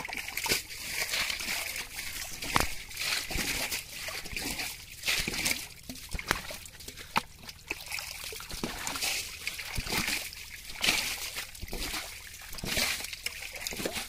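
Small catfish thrashing in ankle-deep muddy water, making many irregular wet splashes and slaps over a steady trickling hiss.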